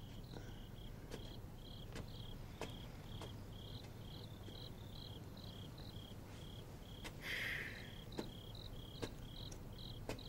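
Crickets chirping steadily, short even chirps about two a second, with a few soft footsteps and a brief rustling hiss about seven seconds in.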